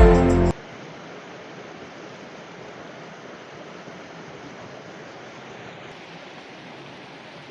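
Background music cuts off about half a second in, leaving the steady rushing of river water.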